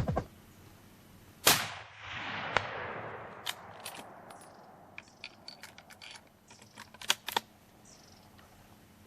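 A single shot from a Weatherby Vanguard bolt-action rifle in .30-06 Springfield, about a second and a half in, its report rolling away over the next two seconds. It is followed by a series of light metallic clicks, typical of the bolt being worked to chamber the next round.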